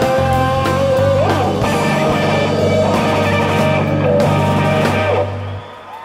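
Live rock band playing the closing bars of a song: electric guitar lines over bass and drums with cymbal hits. The band stops together about five seconds in, leaving only a ringing tail.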